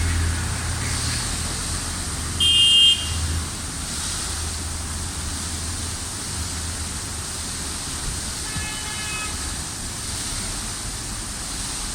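Street traffic ambience with a steady rushing hiss and a passing vehicle's low rumble that fades out. A short car horn toot sounds about two and a half seconds in, and a fainter horn-like tone comes later.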